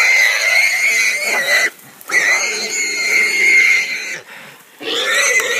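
Caught wild hog squealing: long, steady, high-pitched screams, three in a row, each about two seconds, with short breaks between them.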